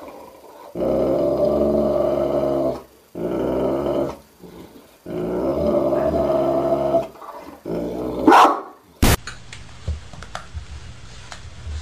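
A dog growling in three long drawn-out stretches, then a short, sharper cry near the end before the sound cuts off abruptly. Only faint clicks follow.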